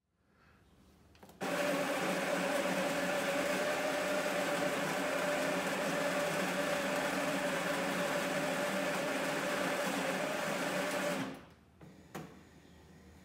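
Schaerer Coffee Art Plus super-automatic espresso machine's built-in grinder running steadily for about ten seconds, starting and stopping abruptly, with a steady hum throughout. A single click follows shortly after it stops.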